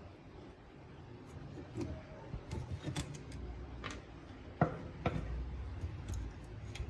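Scattered clicks, taps and short scrapes of hand work on small parts, with the sharpest click about four and a half seconds in.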